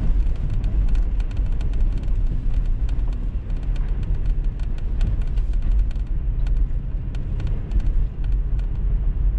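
Toyota 4Runner driving through a shallow rocky creek crossing: a steady low rumble of engine and drivetrain, with many sharp ticks and clicks throughout.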